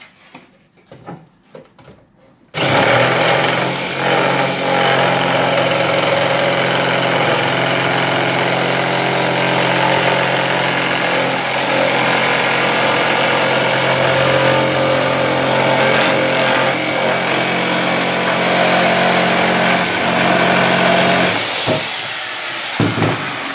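Corded electric jigsaw cutting through a board, running steadily at one pitch, then winding down and stopping near the end. A few light knocks come just before the saw starts, about two and a half seconds in.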